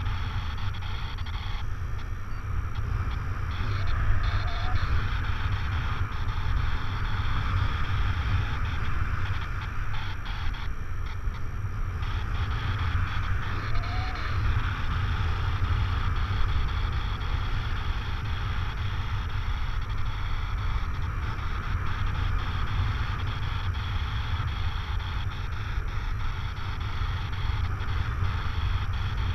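Wind rushing over the camera microphone of a paraglider in flight: a steady low buffeting rumble with a hiss above it, swelling and easing a little.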